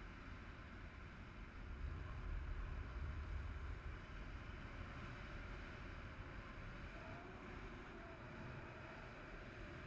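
Wind noise from the airflow of a paraglider in flight buffeting the camera's microphone: a steady rush with a low rumble that grows stronger about two seconds in and eases off again around four seconds.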